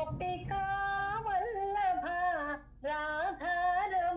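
A woman singing unaccompanied, a line of a Krishna devotional song in long held notes with slides and small ornaments between pitches. There is a short breath about two and a half seconds in, between two phrases.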